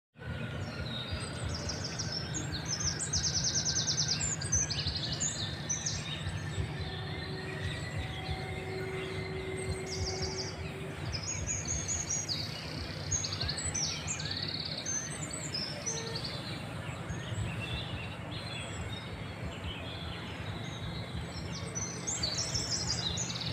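Small birds chirping and trilling, with rapid high twitters coming and going throughout, over a steady low background hum.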